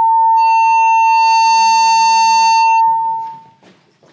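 Public-address feedback howl from the lectern microphone: a loud, steady high-pitched tone, joined for about two seconds by a harsher, buzzier ring above it, then dying away a little over three seconds in as the microphone cuts out.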